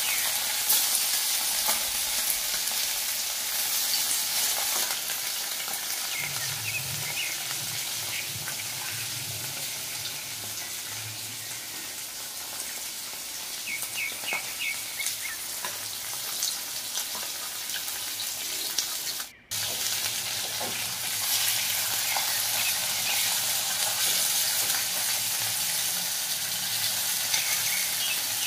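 Pieces of fish sizzling and crackling as they fry in hot oil in an aluminium wok, steady throughout with a brief break about two-thirds of the way through.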